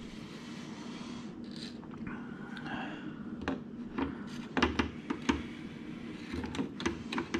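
Light clicks, taps and scrapes of a molded oil pan gasket being handled and fitted against an engine block's pan rail, mostly in the second half, over a faint steady hum.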